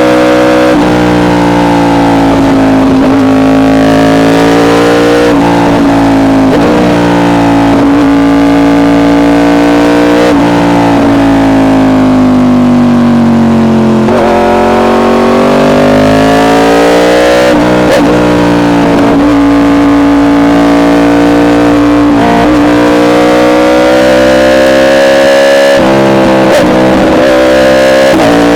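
Yamaha R1 inline-four sport bike running at steady high revs through an SC Project exhaust while riding. Its pitch sags slowly and climbs again, with a few brief breaks in the note.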